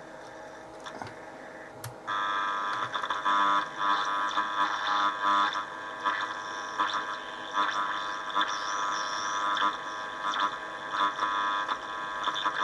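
AM transistor radio's speaker output while its tuning dial is turned: a faint hiss, then about two seconds in a click and a louder mix of whistles and steady tones over wavering noise, with no station yet tuned in.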